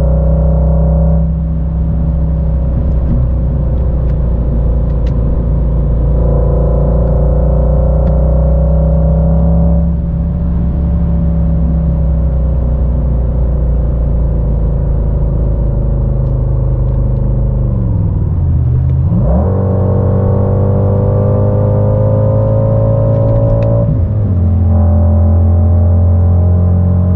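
App-generated Mercedes-AMG GT 63 S twin-turbo V8 engine and exhaust sound played through a car's speakers, its pitch following the car's engine speed while driving. The note drifts gently, dips sharply and climbs back about nineteen seconds in, then drops suddenly about twenty-four seconds in and runs on a little louder.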